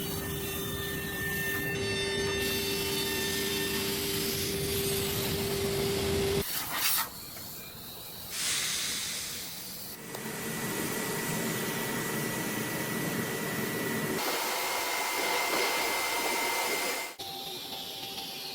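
Arc forming machine running: a steady machine hum with hiss and rubbing noise. The sound changes abruptly several times, a steady tone dropping out about six seconds in.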